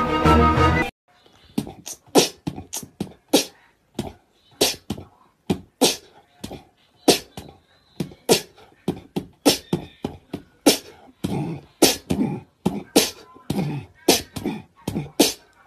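A domestic cat hissing and spitting over and over, in short sharp bursts about one or two a second: a defensive, threatened cat.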